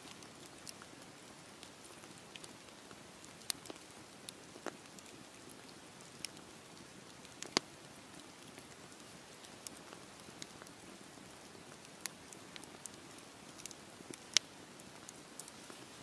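Wood campfire burning: a soft steady hiss of the flames with irregular sharp crackles and pops from the logs, a handful of them much louder than the rest.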